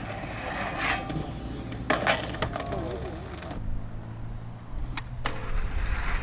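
Skateboard clacks and knocks: a few sharp hits of the board about one and two seconds in and again near five seconds, over a steady low rumble that swells near the end.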